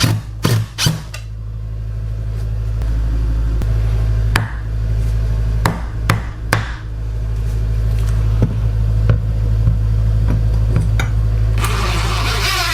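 Hammer strikes during a plumbing install: a quick run of blows at the start, then single knocks every second or so, over a steady low hum. A hissing rush comes in near the end.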